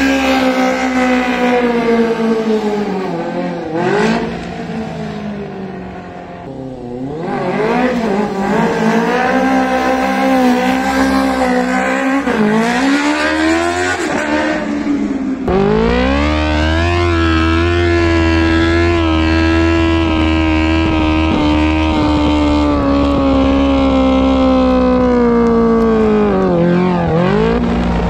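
Honda CBR600 F4i inline-four engine held at fairly steady high revs through wheelies, its pitch sagging and climbing as the throttle is worked, with several quick dips where the revs drop and pick back up. About halfway through the sound changes abruptly to a closer, steadier engine note over a low rumble.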